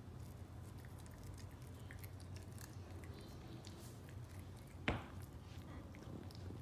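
Parson Russell Terrier puppy chewing and biting a brussels sprout, a run of faint small clicks and crunches, with one sharp, louder click about five seconds in.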